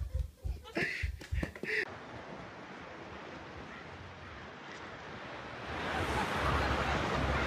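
Wind noise on the microphone and road noise inside a moving car: a steady hiss with a low rumble that grows louder about six seconds in. Before it, about two seconds of sharp knocks cut off suddenly.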